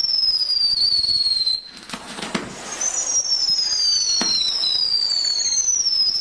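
Whistling fireworks: several shrill whistles, each gliding down in pitch and overlapping one another, with a sharp bang about two seconds in and another about four seconds in.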